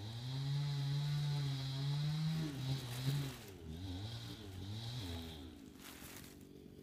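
Chainsaw running at a distance while trees are being cut, its engine pitch rising and dipping as it works and dropping away near the end.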